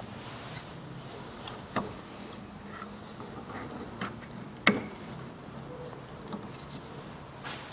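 Scattered sharp clicks and knocks of hands working a power steering hose and an orange plastic plug at the fluid reservoir. There are about four, the loudest about four and a half seconds in, over steady low background noise.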